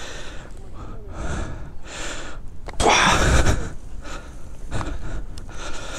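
A person breathing hard close to the microphone: a series of loud breaths about a second apart, the strongest about three seconds in.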